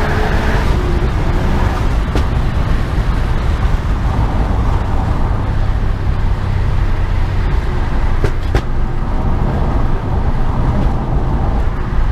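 Turbocharged Subaru Impreza's flat-four engine running steadily while driving, with road noise and a few short clicks about two seconds in and around eight seconds in.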